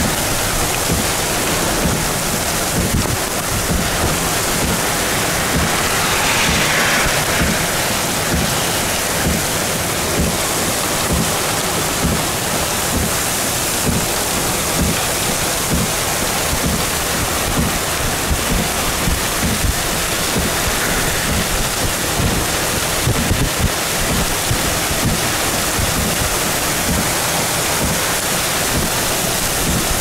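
Heavy downpour driven by strong wind, with the wind buffeting the microphone. A steady, loud wash of rain and wind noise.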